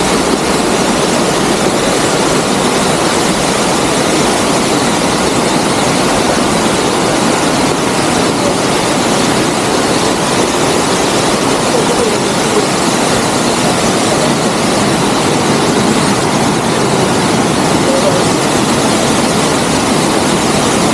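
Motorboat engine running steadily at speed, mixed with the rush of water and wind.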